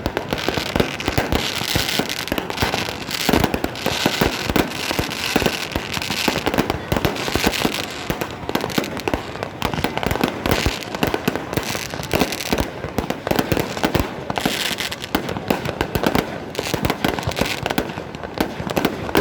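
A dense, continuous barrage of fireworks: rapid bangs and crackling, many shots a second without a pause.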